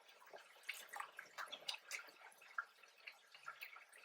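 Faint eating sounds: irregular small clicks and crackles of chewing and mouth noises as fried chicken and waffles are eaten.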